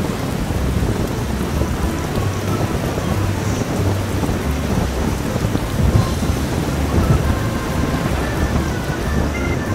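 Steady wind roar and low rumble on the microphone of a motorcycle's handlebar camera at riding speed, with hiss from tyres on wet asphalt.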